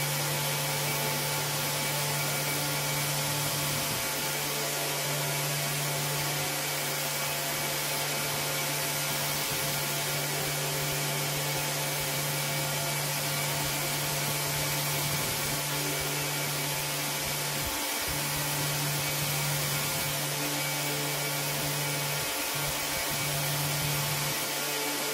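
An electric rug-cleaning machine's motor running steadily: a constant low hum with an even hiss over it.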